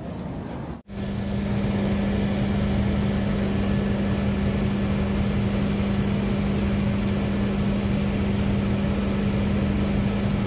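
Train's diesel engine idling while it warms up: a steady, even drone that starts about a second in.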